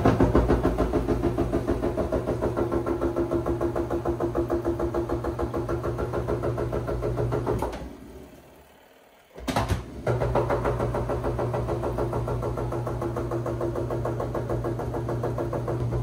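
Spin-dryer motor of a Costway portable mini washer spinning a basket of soaking-wet laundry: a steady electric-motor hum with a fast, even pulsing of about four beats a second. It dies away about eight seconds in and starts up again about two seconds later.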